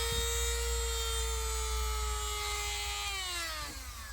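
Handheld rotary tool spinning freely at high speed with a steady high whine, then switched off about three seconds in and winding down in a falling whine.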